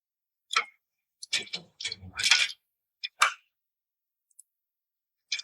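Short handling clicks and scrapes from a small tool and wires being worked into a plastic terminal connector, in a few separate bursts over the first three and a half seconds.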